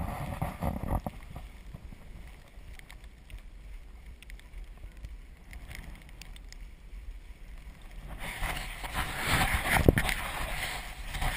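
Azub recumbent trike's tyres rolling through snow and slush, with wind on the microphone; the hiss of the tyres grows louder about eight seconds in, and there is a single sharp knock near the end.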